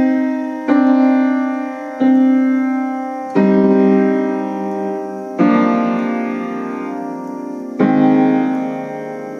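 Piano playing a slow succession of full chords, each struck and left to ring and fade before the next; the chords come about every one and a half seconds at first, then further apart near the end. It is a slowed-down rendition of a piece normally too fast for human hands.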